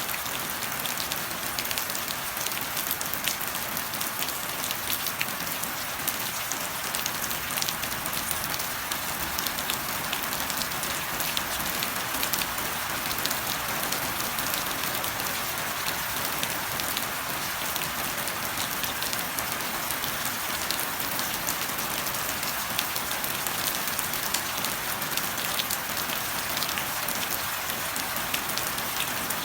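Steady rain falling on a hard surface, an even hiss dotted with many small drop ticks.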